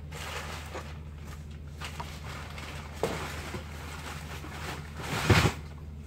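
Cardboard being handled and worked by hand, with a click about three seconds in and a louder rough scrape a little after five seconds, over a steady low hum.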